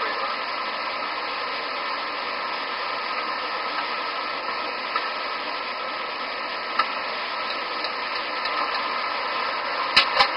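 Steady rushing noise of a DC-9 cockpit on its cockpit voice recorder, the running engines and airflow picked up by the cockpit microphone, with two sharp clicks near the end.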